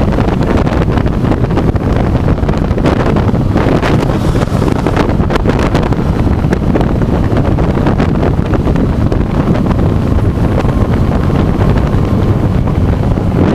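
Heavy wind rushing over a motorcycle-mounted action camera's microphone at road speed, a steady rumbling roar with the bike's running and road noise buried underneath.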